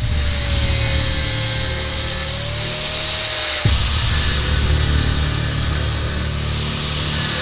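Angle grinder with an abrasive cut-off disc running at speed, cutting through copper wire: a high hissing whine over a steady tone that wavers slightly, starting abruptly and changing character about halfway through.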